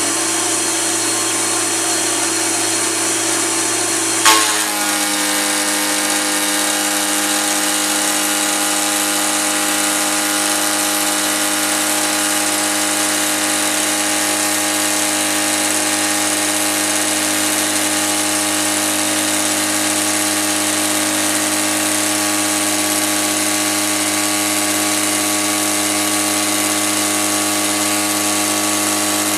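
CNC mill spindle at 7000 RPM driving a two-flute 1" insert cutter through 6061 aluminium plate on a heavy roughing pass, a loud steady whine of many tones over cutting noise. About four seconds in there is one sharp click, and the pitch of the cut shifts a little and then holds steady.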